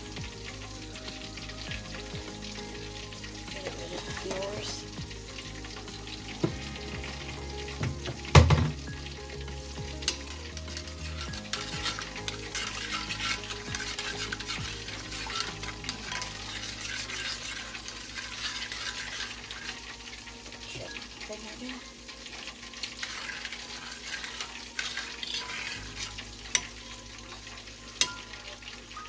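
Metal spoon stirring a thick honey mustard sauce in a ceramic dish, over a steady sizzling hiss, with a few sharp clinks against the dish, the loudest about eight seconds in.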